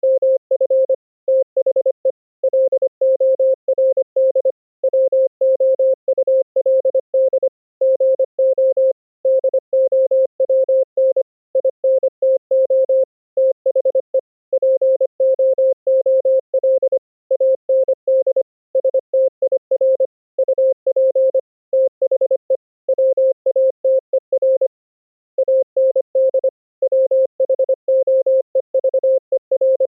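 Morse code (CW) sent as a single steady tone of about 550 Hz, keyed fast in dots and dashes with short gaps between characters and words, and one longer pause near the end.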